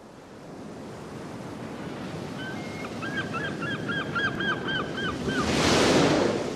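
Ocean surf fading in and building to a swell of breaking waves near the end. In the middle, a bird calls about ten times in quick succession.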